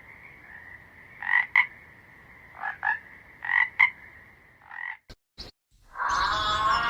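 An animal calling in quick pairs of short calls, four times, over a steady high-pitched drone. Near the end there are two sharp clicks and a moment of silence, then a louder new sound begins.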